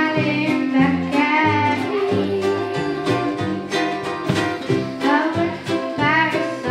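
A young girl singing a song over a small live band: plucked strings, a moving bass line and light drums with cymbal keeping a steady beat.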